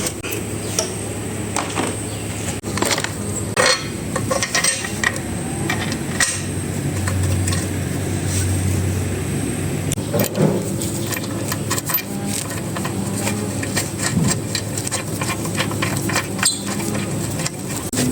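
Hand tools knocking and clinking on metal parts in irregular taps and clicks, over a steady low hum.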